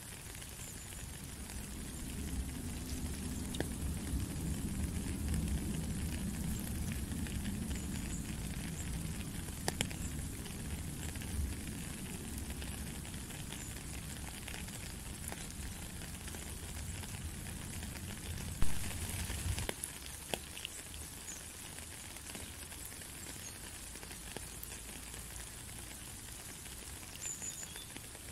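Steady rain with a hissing patter and scattered louder close drips. A low rumble runs under it through the first two-thirds, and one sharp knock about two-thirds in is the loudest sound.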